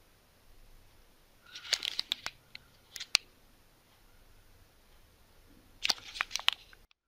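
A clear plastic bag crinkling as fingers handle and press it, in three short crackly bursts, the last about six seconds in. The sound then cuts off suddenly to dead silence.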